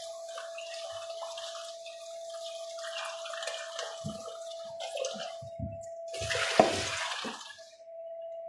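Tap water running into a kitchen sink, with knocks and a clatter of things handled in the sink, the loudest about two thirds of the way through; the water stops near the end. A steady hum runs underneath.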